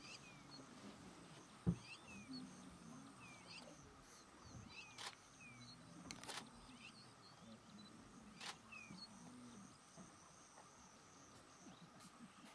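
Faint low, wavering growls of lions snarling at one another, with small birds chirping repeatedly in the background. A thump about two seconds in and a few sharp clicks break through.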